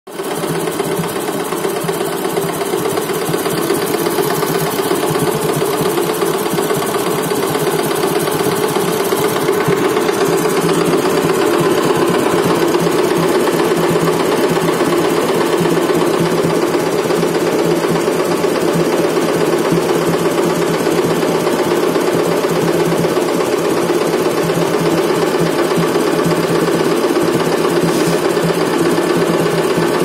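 A tractor-drawn tar boiler rig running steadily: the diesel tractor engine and the boiler's oil-fired burner together give a loud, even, fast mechanical chatter without a break.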